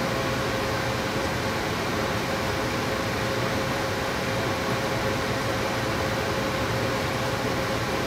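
Two-stage gas furnace running in low stage, with its inducer motor, burner and circulating blower all on: a steady rush of air with a thin steady hum.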